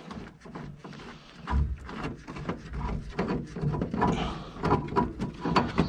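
Irregular clicks, knocks and clinks of hand tools and metal parts being handled: channel-lock pliers working a gas pipe fitting on a furnace.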